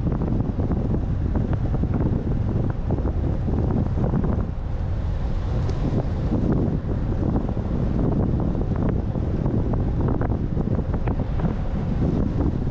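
Wind buffeting the microphone of a GoPro Hero8 action camera at speed on a road-bike descent: a loud, steady low rumble with constant rapid flutter.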